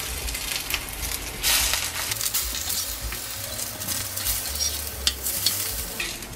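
Slices of Korean zucchini sizzling in oil in a stainless steel pan, with a metal spatula scraping against the pan a few times as the slices are turned.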